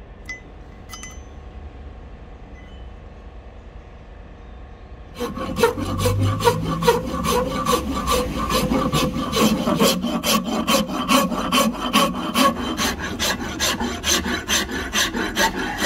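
A hand rasp cutting a rosewood axe-handle blank clamped in a vise, in quick regular strokes with several scrapes a second. The rasping starts suddenly about five seconds in, after a quiet stretch with a few light clicks.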